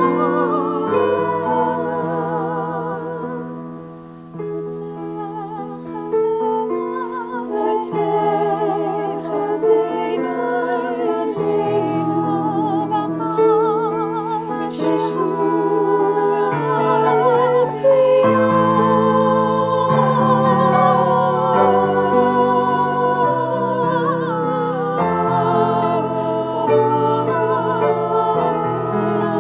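Small ensemble of women's voices singing a slow Hebrew prayer setting in several-part harmony with vibrato, accompanied by piano.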